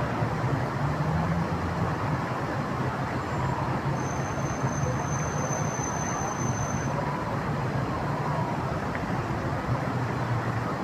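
River water rushing steadily, with a low hum underneath. A thin high whine is heard from about four seconds in, lasting about three seconds.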